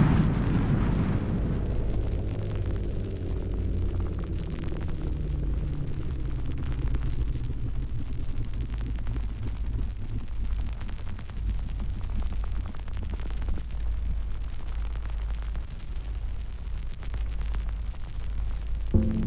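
Sound effect of a fiery blast dying away over the first couple of seconds into a steady low rumble. Near the end a low pitched hum cuts in.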